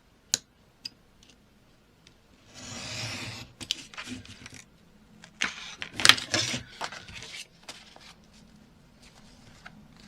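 Paper being cut and handled on a craft table: two sharp clicks near the start, a rasping slide about two and a half seconds in, then a flurry of crackles and taps around six seconds.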